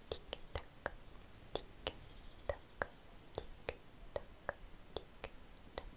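Soft, sharp clicks close to the microphone, irregular, about two or three a second.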